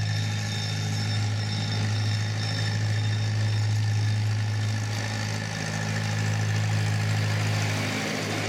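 Miniature train's locomotive engine running with a steady low drone as the train pulls past.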